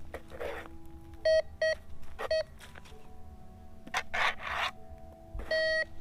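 MD-4030 metal detector beeping as its coil is swept over a freshly dug hole. There are two short beeps, a third just after, and a longer beep near the end, the detector signalling metal still in the ground. Scraping, brushing sounds come between the beeps.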